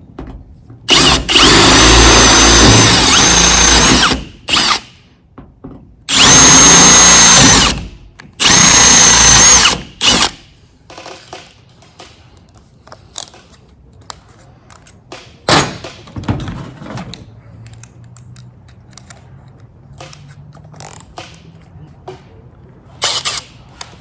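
Power drill boring holes through truck-cab roof sheet metal with a step-up bit after a pilot hole. There are three runs of a few seconds each, with a short burst between the first two and a steady high motor whine in each. Afterwards come light handling clicks and one sharp knock.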